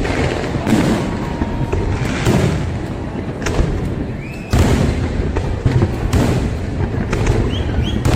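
Aerial fireworks bursting in quick succession: repeated booms and cracks over a continuous low rumble, with a loud burst about four and a half seconds in.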